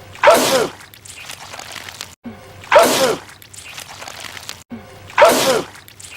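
A man sneezing loudly three times at even intervals about two and a half seconds apart, the same sneeze repeated as a loop. Each sneeze is a short burst whose voice falls in pitch before trailing off.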